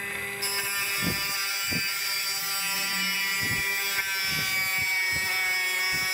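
Benchtop table saw running with a steady whine while a wooden plank is fed through it, with a few dull knocks as the wood shifts on the saw table.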